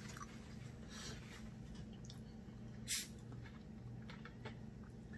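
Quiet eating sounds: faint chewing and mouth clicks over a low steady hum, with one short hiss about three seconds in.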